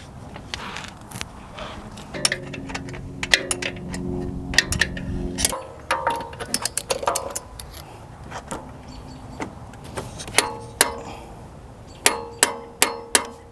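Metal tools and parts clinking and clanking during hands-on work on a motorcycle wheel. A power tool runs steadily for about three seconds and then cuts off suddenly. Near the end come a quick run of about five sharp metallic clicks.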